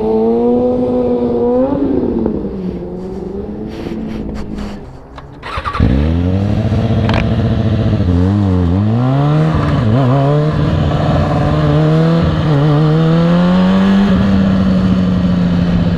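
Sport-bike inline-four engine of a 2003 Kawasaki ZX-6R 636 being ridden. Its pitch falls away and the engine goes quieter about four seconds in. About six seconds in the throttle snaps open, followed by several quick rises and falls in revs before it holds a steady high pitch.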